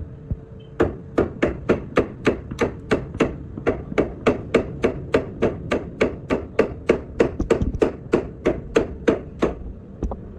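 A hammer striking a suspension part in a steady run of blows, about three a second, starting about a second in and stopping shortly before the end.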